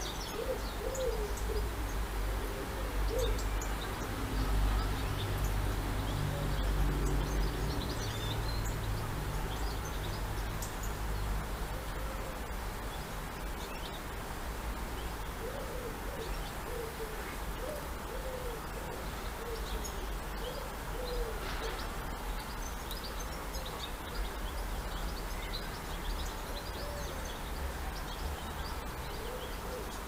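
Pigeons cooing in repeated groups of short, low, rounded notes, with faint chirps of small birds over a steady low rumble.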